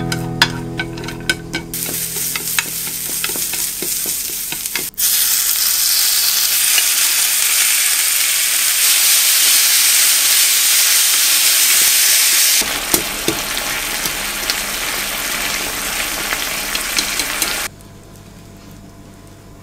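Food sizzling in a small square frying pan while being stirred with wooden chopsticks: julienned carrots first, then marinated thin-sliced beef, the sizzle louder and hissier from about five seconds in. It cuts off near the end.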